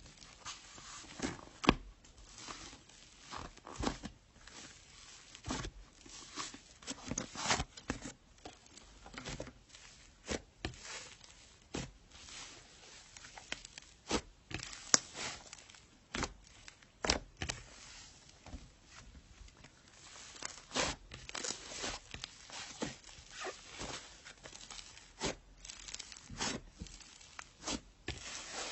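Slime being handled, giving irregular sticky clicks, crackles and tearing sounds, a few of them sharper and louder than the rest.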